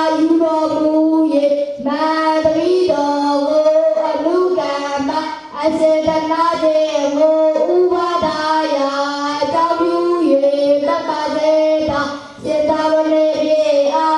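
Boys' voices chanting Pali together in a sing-song unison: the formula in which would-be novices ask to be ordained. The chant runs in long phrases, broken by short pauses for breath about two, five and twelve seconds in.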